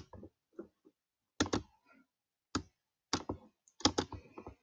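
Computer mouse clicking: short, sharp clicks in small groups, with a few more close together in the last second and a half.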